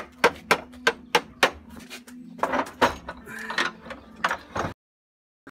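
Hammer blows on the steel cutter bar of a disc mower, about three sharp metallic knocks a second, then a busier run of knocks and scraping, over a steady low hum; the sound cuts out abruptly near the end.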